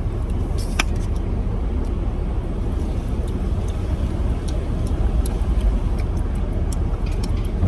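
Low, steady rumble of a car heard from inside the cabin, engine and road noise, with a sharp click about a second in.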